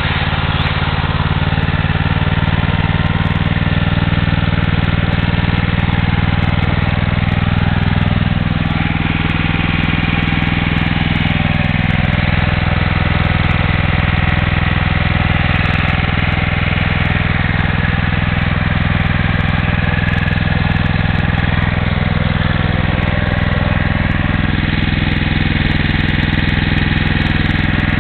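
Honda E2500 generator's single-cylinder G300 engine running steadily at a constant speed, its ignition now working on new points and condenser.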